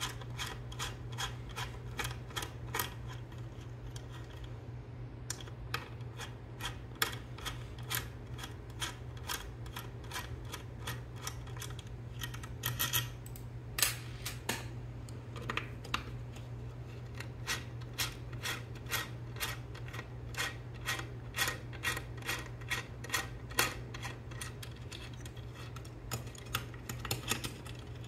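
Small metal clicks, about two to three a second, from a hex key turning a long screw out of a robot arm's aluminium base, with a louder clatter about 13 to 14 seconds in. A steady low hum runs underneath.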